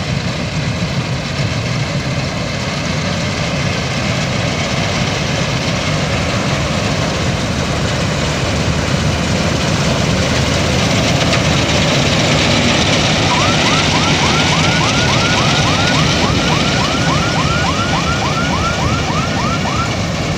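Balkar 654 combine harvester running under load while cutting standing rice: a loud, steady engine and machinery noise. About two-thirds of the way in, a rapid run of short rising squeaks, about four a second, joins it for several seconds.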